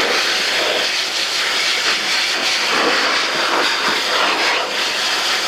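AIIYME SH-168 pet grooming dryer blowing a steady, loud rush of air while drying a small dog's wet coat.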